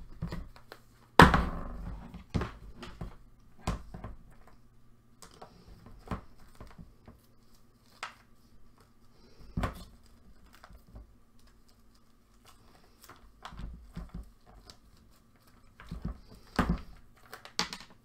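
Hands handling and rummaging in a plastic storage container: scattered knocks and clicks, the loudest a sharp thunk about a second in, over a low steady hum.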